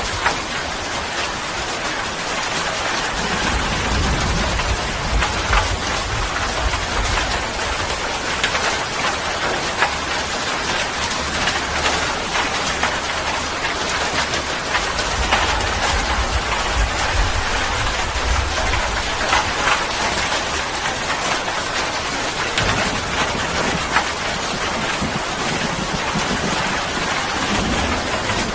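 Steady rain falling, a dense hiss dotted with the patter of individual drops, with low rumbles that swell and fade several times.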